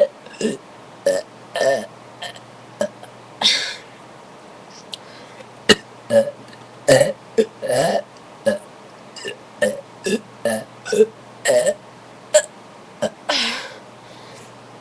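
A person burping again and again: a string of about two dozen short burps, with a few longer, drawn-out ones among them, brought up by drinking soda.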